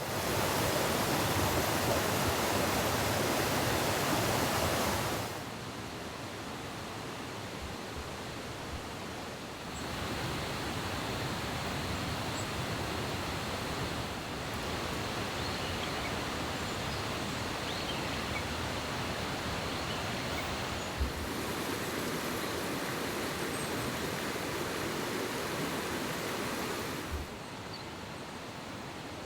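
Steady rushing outdoor ambient noise with no clear single source. It steps up and down in level at several abrupt cuts.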